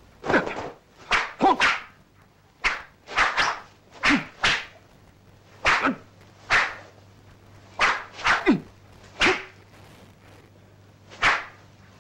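Sharp whooshes of a broadsword slashing through the air in a kung fu routine, a dozen or more in quick, uneven succession, some sweeping down in pitch, with a short pause near the end.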